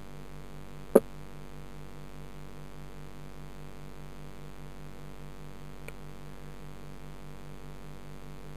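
Steady mechanical hum with a fast, even pulse, heard through a submerged underwater camera, with a sharp loud click about a second in and a faint click near six seconds.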